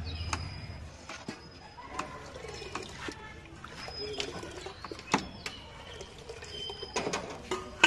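Scattered clicks and knocks of utensils being handled at a street food stall, irregular and getting louder near the end, with a few short high bird chirps behind them.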